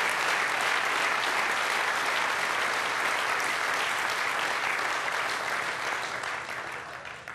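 Crowd applauding steadily, thick clapping that dies away over the last second or two.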